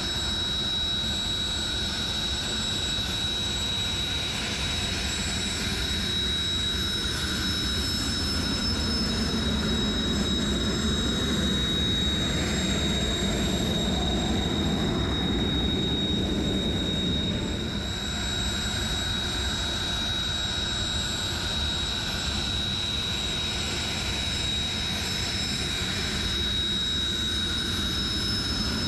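Jet trainer's turbofan engines running steadily: a continuous high whine over a low rumble.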